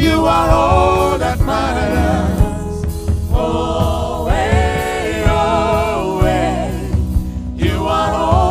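Gospel choir singing in harmony over a band with a steady bass and drum beat.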